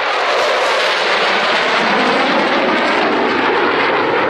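Jet roar of an F-16 fighter flying past overhead, its single Pratt & Whitney F100 afterburning turbofan loud and steady.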